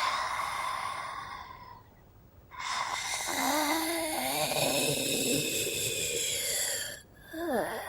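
Mummy creature sound effects: hoarse, breathy groans. One fades out about two seconds in, and after a short pause a longer groan follows that wavers in pitch. A third starts near the end.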